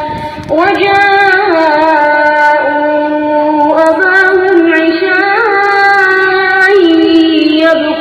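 Qur'an recitation: one voice chanting in long, held, ornamented notes, played loud through a PA loudspeaker, with a short break between phrases about half a second in.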